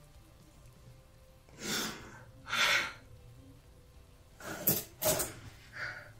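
A distressed woman breathing heavily: two long breaths in and out, then a few shorter, sharper breaths and sniffs near the end.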